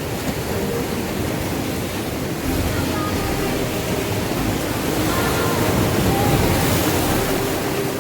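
Sea surf breaking and washing on the shore, swelling louder about two and a half seconds in and again near the end.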